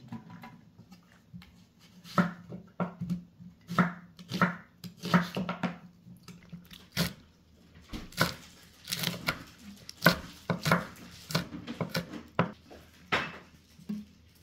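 A chef's knife chopping onion and green and red chili peppers on a wooden cutting board: a run of uneven, sharp knife strikes on the board, starting about two seconds in.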